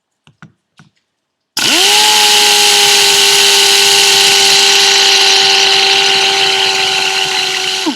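A few light clicks, then about a second and a half in a power tool spins up fast and runs loud at a steady high speed with a constant whine for about six seconds before spinning down. It is cutting the Evo 9 turbo's center housing to make room for the upgraded thrust collar.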